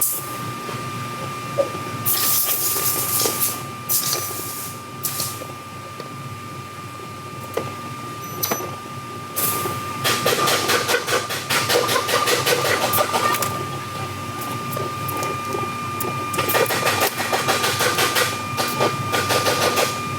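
Resistance spot welder joining a new car body panel: repeated welds of a second or more each, with crackling noise over a steady electrical hum, and a steady high whine behind.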